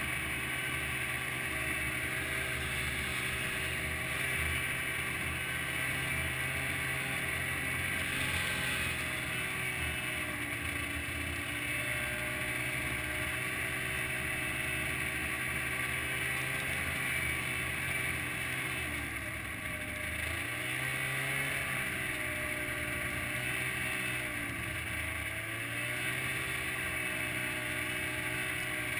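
Snowmobile engine running steadily while following the dog team. In the second half its pitch dips and rises again a few times as the throttle eases and opens.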